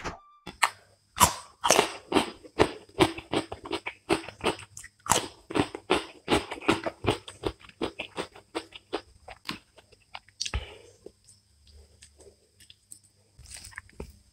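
Close-miked hand-eating sounds: fingers working rice and vegetable fry on a plate, a dense run of sticky clicks and crackles several times a second for about ten seconds, then much quieter near the end.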